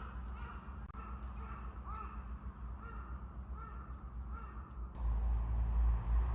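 A bird giving a series of short calls, about two a second, over a steady low rumble that grows louder about five seconds in.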